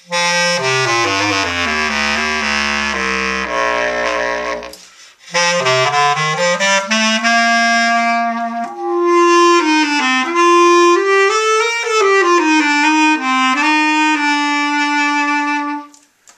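Kessler low C bass clarinet with a Bay mouthpiece and a Légère studio-cut plastic reed, played as a test of the setup. It opens with a run of notes stepping down into the low register, breaks off about five seconds in, then plays a melodic phrase that climbs into the upper register, with a little vibrato.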